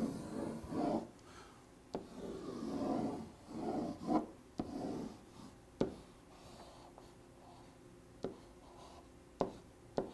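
Marker drawn across a white board in long rubbing strokes, three stretches of them in the first five seconds, then quieter, with a few short sharp clicks.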